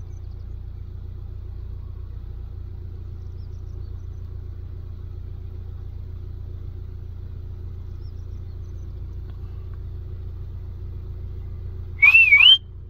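Steady low motor rumble. Near the end, a brief high tone wavers up and down.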